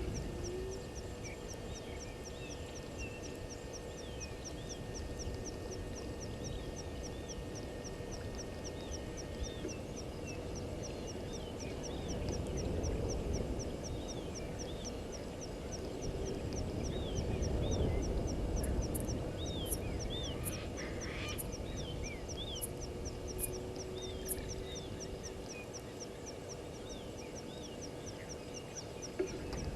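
Outdoor bushveld ambience at a waterhole. Birds give short rising-and-falling calls, repeated about once a second, over a fast, even insect ticking, with a low rumble that swells twice, about halfway and two-thirds of the way through.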